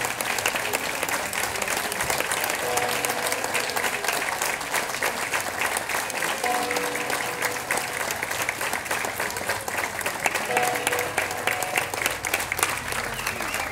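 Audience applauding steadily. A short, held tone sounds briefly about every four seconds.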